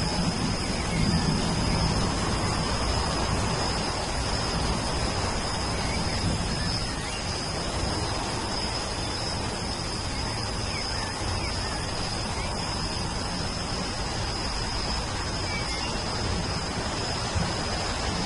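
Steady rain falling, with a low thunder rumble dying away in the first couple of seconds. A constant high-pitched tone sits over the rain, and a few faint bird chirps come through now and then.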